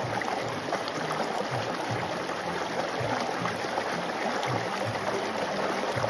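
Shallow rocky stream flowing over stones in small cascades: a steady, even splashing rush of water.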